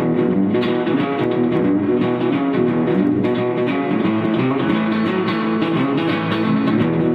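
Rickenbacker-style electric guitar being played, chords and notes ringing on without a break.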